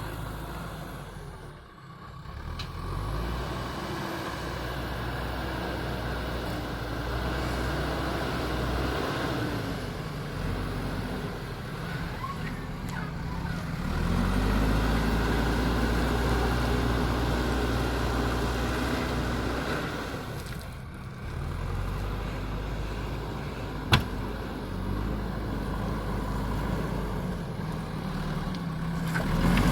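JCB backhoe loader's diesel engine working, its pitch rising and falling as it revs up under load and drops back. There is one sharp knock about three-quarters of the way through.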